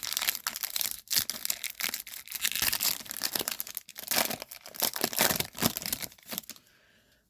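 A Topps baseball card pack's wrapper being torn open and crinkled by hand, a busy crackling that dies away about six and a half seconds in.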